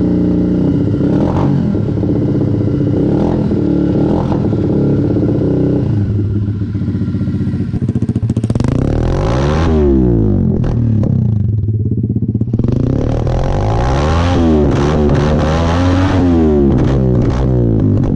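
Four-stroke single-cylinder off-road motorcycle engine idling with three short throttle blips, then revved up and down repeatedly in the second half, its pitch climbing and falling several times.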